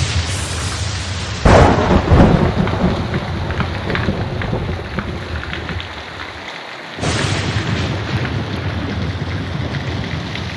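Heavy rainstorm pouring down, with a loud rumble of thunder starting about a second and a half in.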